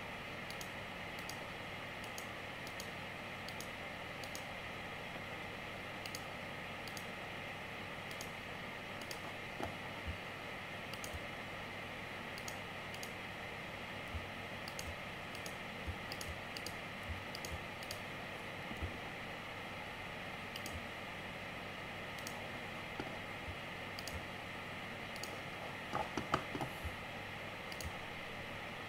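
Faint, irregular clicks and taps from working a computer's mouse and keyboard, over a steady background hiss; a short cluster of louder taps comes near the end.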